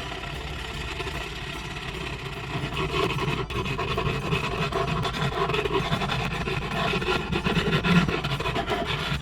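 A wooden guitar neck being shaped by hand: a tool scraping steadily across the wood, growing louder about two and a half seconds in.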